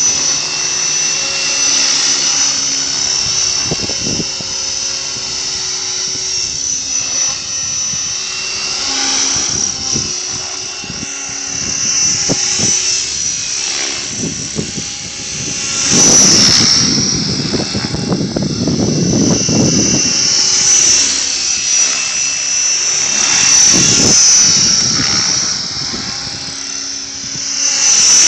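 A 550-size radio-controlled helicopter flying, its rotor and drive giving a steady high-pitched whine over lower steady tones. Wind gusts buffet the microphone several times, the loudest about sixteen seconds in.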